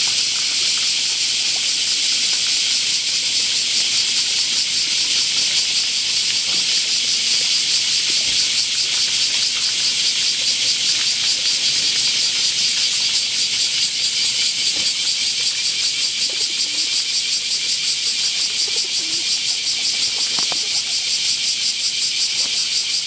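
Loud, steady shrill of a cicada chorus with a fast, even pulse, with a few faint taps from pigeons pecking feed pellets from a hand.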